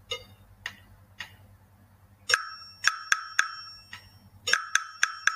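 Wood block struck in a rhythm exercise. A few soft ticks come first, then from about two seconds in a pattern of sharp, ringing hits: one, two quick, one, a pause, then a run of quick hits.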